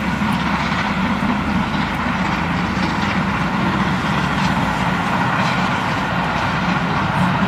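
GWR Castle class steam locomotive hauling a passenger train, heard as a steady, even rushing noise of exhaust and train with no distinct beats.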